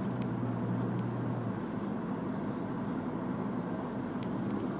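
Steady road and engine noise heard from inside a moving car, a low rumble with hiss; a low hum in it drops out about a second and a half in.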